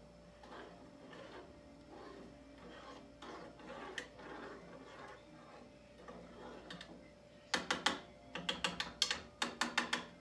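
Spoon stirring hot cocoa in a small pot on the stove. Soft scattered clinks and scrapes at first, then, about seven and a half seconds in, a fast run of loud clinks against the pot, several a second.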